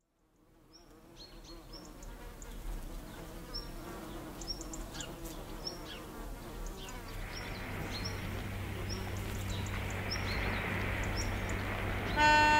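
Outdoor ambience fading in from silence: insects buzzing, with a short high chirp, probably a bird, repeating about once a second. Just before the end a loud steady tone with several pitches sets in.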